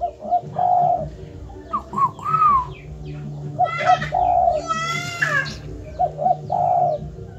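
Spotted dove cooing three times, each phrase two short notes followed by a longer rolling coo, the species' typical "te-kukur" call. Higher-pitched calls come in between, twice.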